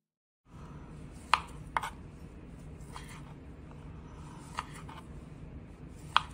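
Chef's knife slicing through smoked kielbasa and tapping the cutting board: about six sharp taps at an uneven pace, roughly one a second, over a steady low hum.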